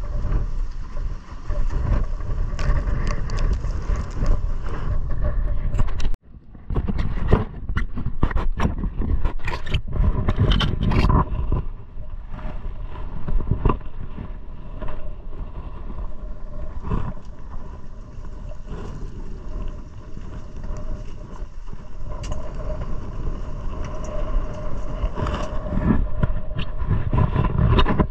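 150 hp outboard motor running steadily on a small open fishing boat, with wind buffeting the microphone and water rushing along the hull. A run of knocks and bumps comes between about seven and eleven seconds in.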